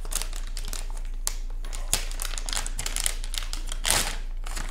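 Metallised anti-static bag holding a graphics card crinkling as it is lifted and handled, in irregular crackles with a louder rustle about four seconds in.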